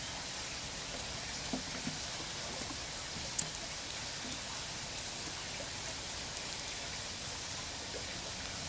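Eastern grey squirrel cracking sunflower seed shells with its teeth: a few sharp clicks, spaced about a second apart, starting a few seconds in, over a steady background hiss.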